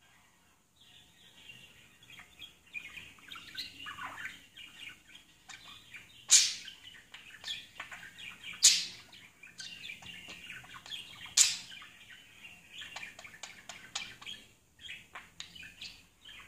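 Budgerigar softly chattering and warbling, broken by three loud, sharp chirps about two and a half seconds apart in the middle, then a run of quick short chirps near the end.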